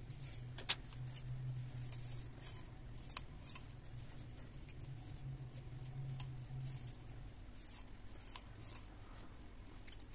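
Comb scraping in short strokes across a coated drawing surface, with a sharp click about a second in and another about three seconds in, over a low steady hum.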